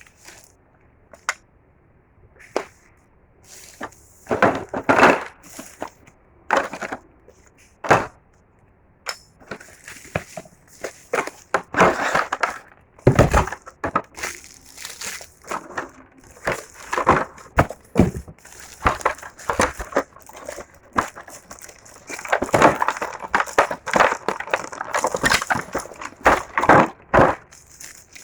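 Packaging being opened and handled: irregular crinkling, tearing and crunching that starts sparse and becomes nearly continuous in the second half.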